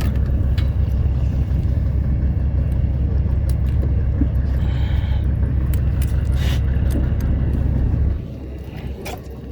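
Steady low rumble with a few light clicks over it, dropping off sharply about eight seconds in.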